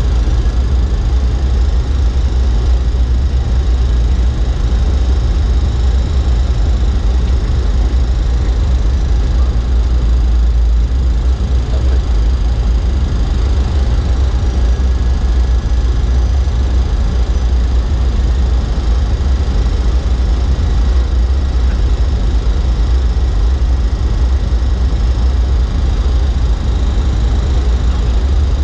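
Steady, loud low rumble of flight-deck noise in a Boeing 737-300 on final approach, from the airflow and the engines, with a few faint steady high tones above it.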